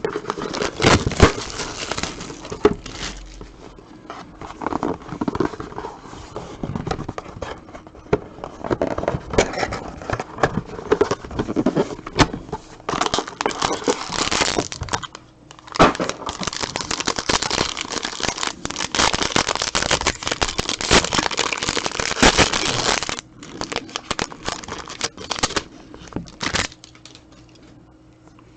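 Plastic wrapping being torn and crinkled as a sealed box of trading cards and its packs are opened, in long stretches of dense crackling that settle near the end.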